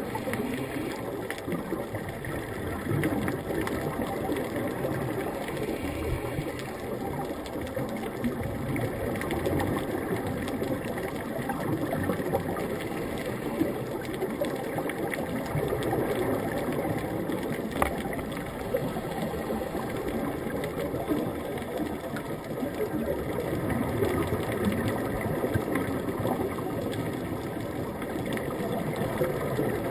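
Steady underwater noise heard through a waterproof camera housing: a dense, muffled low rumble with fine crackling and a few faint clicks, swelling and easing slowly.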